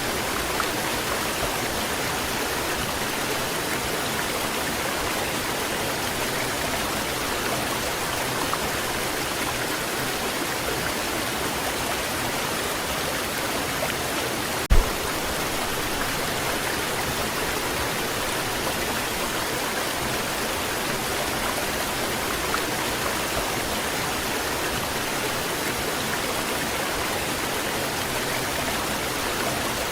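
Waterfall rushing in a steady, even wash of falling water, with one brief low thump about halfway through.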